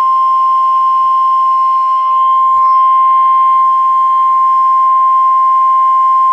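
NOAA Weather Radio warning alarm tone: one loud, steady high tone near 1050 Hz, with faint radio hiss behind it. It signals that a warning broadcast, here a National Weather Service severe thunderstorm warning, is about to follow.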